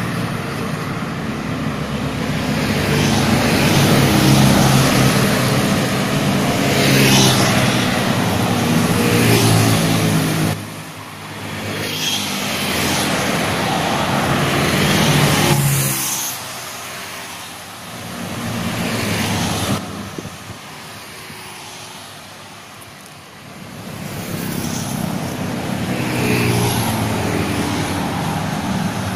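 Road traffic of cars and motorcycles driving past close by, each engine swelling and fading as it goes, with a quieter lull about two-thirds of the way through.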